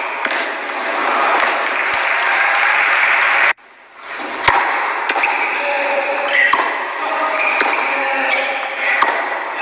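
Tennis match sound: scattered sharp hits of racket on ball over a steady background hubbub. Everything cuts out abruptly for a moment about three and a half seconds in, then fades back.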